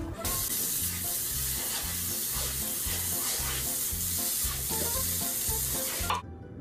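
Garden hose spraying water onto a wet concrete patio: a steady hiss that cuts off suddenly near the end.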